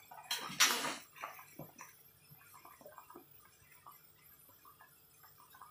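Pot of tom yum fish broth boiling on a gas burner, with soft, irregular bubbling pops. A short, loud hiss comes about a second in.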